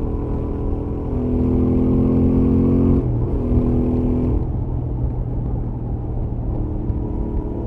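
Stock Royal Enfield Interceptor 650 parallel-twin engine pulling at steady highway speed, heard from the rider's helmet. The exhaust gets louder about a second in under more throttle, the pitch dips and comes straight back about three seconds in as the throttle is briefly eased and reopened, then it settles into a quieter cruise with a low rumble underneath.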